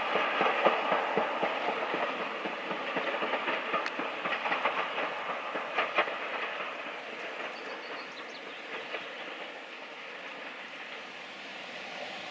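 Passenger train running away along the track, its wheels clicking and clattering over the rails, the sound fading as the train draws into the distance.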